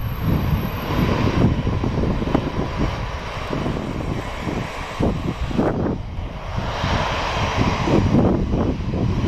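Airbus A350-900's Rolls-Royce Trent XWB turbofan engines running at low power as the airliner taxis: a steady rumble with a faint whine that fades out about two-thirds of the way through.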